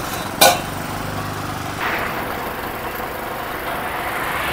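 A motor vehicle engine idling, with a sharp click about half a second in. Water is splashed onto a sun-heated two-wheeler seat to cool it, heard as a hissing splash a little before two seconds in and again at the end.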